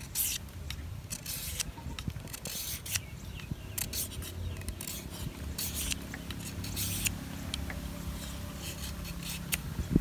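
A knife shaving a thin strip of bamboo: a run of short, irregular scraping strokes.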